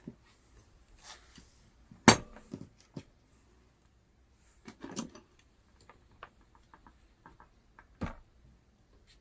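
Hard plastic RC car parts and steel water pump pliers clicking and clacking as they are handled. There is a sharp clack about two seconds in, a cluster of clacks around five seconds, a run of light ticks after that, and another clack near the end as the pliers close on a part.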